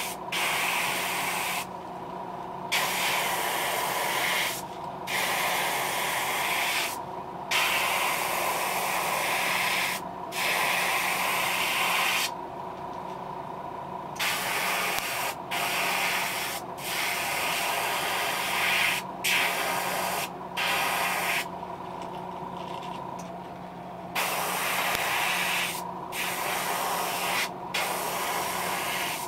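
Airbrush spraying paint onto a jerkbait lure in short passes: a hiss that starts and stops about a dozen times, with two longer pauses, over a steady low hum.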